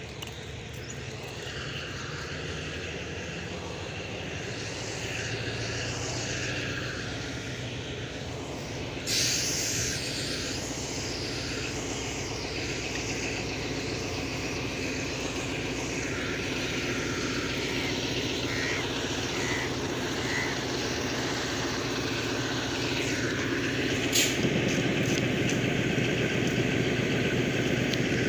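Diesel-electric locomotive engine running steadily and slowly growing louder, with a sudden hiss of air about nine seconds in. Its engine note steps up about 24 seconds in, with a couple of sharp clicks.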